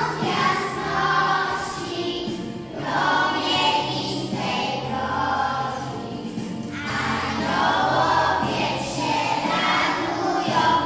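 A group of children singing together in chorus over instrumental backing music.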